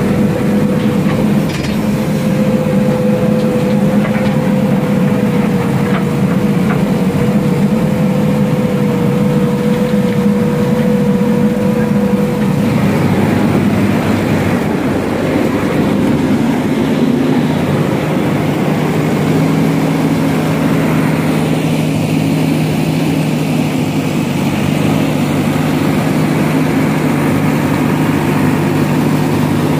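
JCB backhoe loader's diesel engine running steadily, with a steady high whine over it for the first twelve seconds or so. The whine then stops, the engine note changes, and the engine runs on with a steady lower hum.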